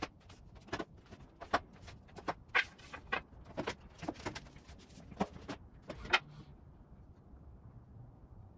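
Wooden 2x4 boards knocking and clunking as they are carried and stacked by hand: a run of irregular knocks, the loudest about six seconds in.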